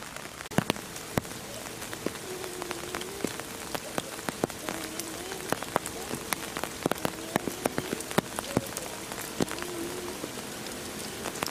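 Steady rain falling, with irregular sharp drops tapping on a hard surface.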